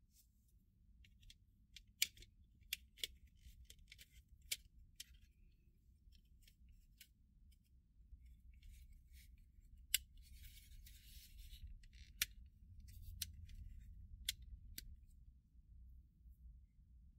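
Faint, scattered sharp clicks and taps of plastic scale-model parts being handled and fitted together, with a short stretch of scratchy rubbing about ten seconds in.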